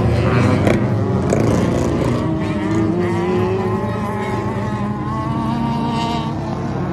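Several small dirt-track race cars' engines running hard at once, their pitches rising and falling as they accelerate and lift around the oval.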